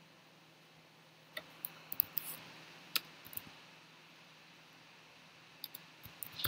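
Computer keyboard keystrokes, faint clicks in short quick bunches about a second and a half in, around three seconds, and near the end, as a word is typed and a letter deleted. A faint steady low hum lies under them.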